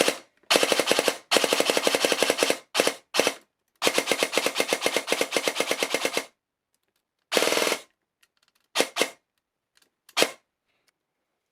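G&P Mk18 airsoft electric gun with a Gate Aster trigger unit firing, its gearbox cycling in rapid strings of shots: a couple of sustained strings of about one and two and a half seconds among several short bursts of a few shots each, with pauses between them.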